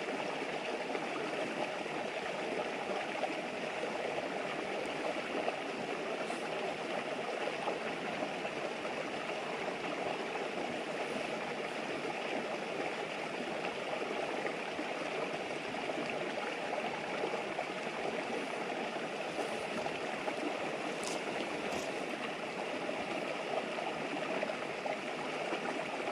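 River flowing steadily: an even rushing murmur of running water. A few faint snaps from the campfire come through, once about six seconds in and twice near twenty-one seconds.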